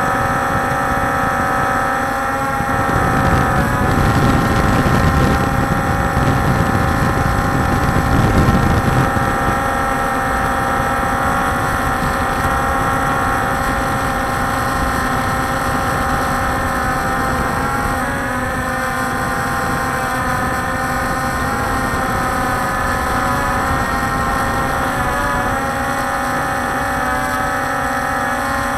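Walkera Scout X4 quadcopter's electric motors and propellers whining steadily, heard through its onboard camera, with a louder low rushing swell from about two to nine seconds in. In the second half the whine wavers in pitch several times as the motors change speed.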